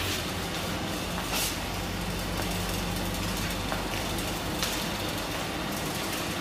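Steady low hum of running machinery with a constant hiss, and a few faint taps.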